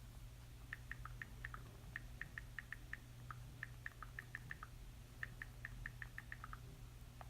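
iPhone keyboard clicks as a text message is typed: quick, short taps in four runs of about a second each, over a faint steady hum.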